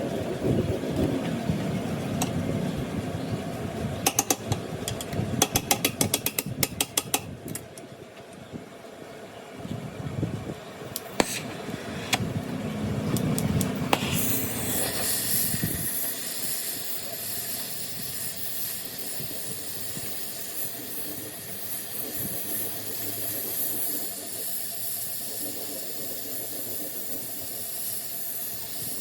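Handling noises with bursts of rapid clicking, then a steady high hiss from about halfway.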